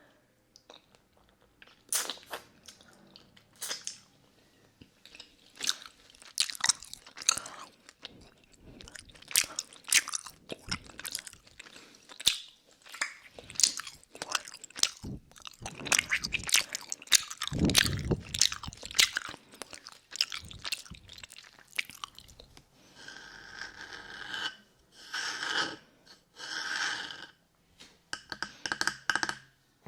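Close-up mouth sounds of a lollipop being eaten: wet clicks, licks and crunching of the hard candy, a quick irregular crackle that starts about two seconds in. Near the end the sound changes to a run of longer, separate wet sounds about a second apart.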